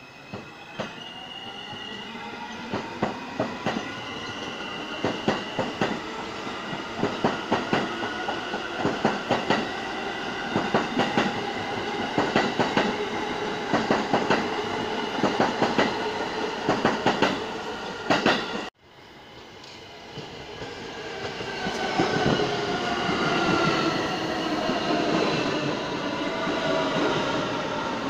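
New York City subway train running past on the far track, its wheels clacking in quick groups over the rail joints above a steady whine of wheels and motors. The sound cuts off abruptly about two-thirds through. Then a second subway train moves along right beside the platform, its wheel and motor noise growing louder.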